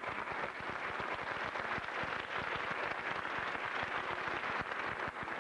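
Theatre audience applauding steadily, dense clapping with no music.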